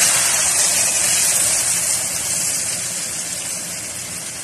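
Beaten eggs poured over cabbage and carrots in a hot frying pan, sizzling with a steady hiss that slowly dies down as the egg covers the pan.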